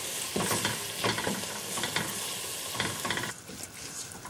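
Chopped onions frying in oil in a stainless steel pot: a steady sizzle broken by several stirring scrapes. The sizzle drops away about three seconds in. The onions are being fried down to a deep dark brown.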